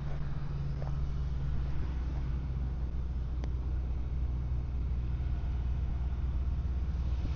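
A vehicle engine running steadily at a low, even hum, with a couple of faint clicks.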